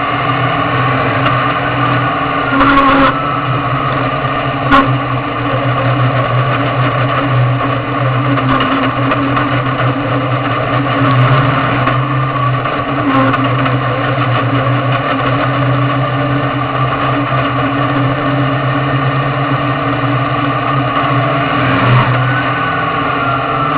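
Dirt-track Sportsman race car's V8 engine running at a steady pitch, heard from inside the open cockpit. Two brief sharp knocks come about 3 and 5 seconds in.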